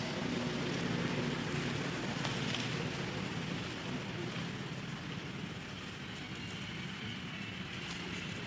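Steady background noise with a low, even hum running under it, easing slightly about halfway through.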